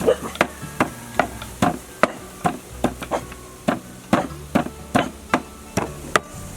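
Pestle pounding herbs and aromatics in a mortar: steady, even thuds about two and a half a second, as lemongrass, galangal, turmeric and lime leaf are crushed into a paste.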